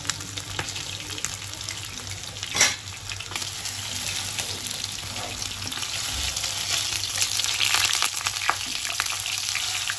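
Masala-coated chicken drumsticks sizzling and crackling as they shallow-fry in hot oil in a nonstick pan, while a wooden spatula scrapes and turns them. There is one sharp knock a little over two seconds in, and the sizzle grows louder through the second half.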